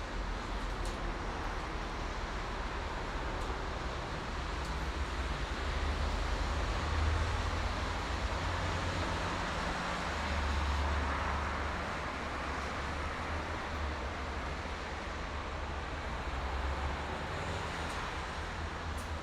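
Steady highway traffic: a continuous rush of tyres and engines with a deep low rumble, swelling as vehicles pass about a third of the way in, near the middle, and again near the end.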